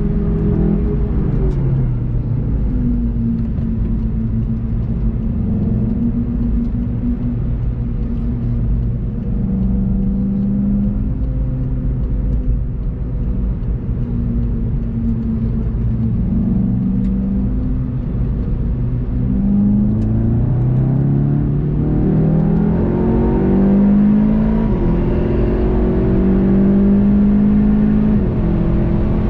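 VW Golf 7.5 GTI TCR's 2.0-litre turbocharged four-cylinder engine heard from inside the car. It runs at fairly low, steady revs, then accelerates hard in the last third, its pitch climbing in several rising sweeps through the gears.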